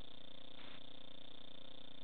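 Steady electronic hum and hiss, several constant tones over static, typical of the audio track of an analog FPV video feed. The hiss swells briefly a little over half a second in.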